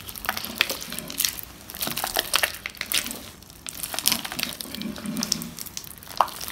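Thick glitter glue slime being kneaded and squeezed by hand while borax activator is mixed in. It gives irregular wet squishing with many small crackling clicks.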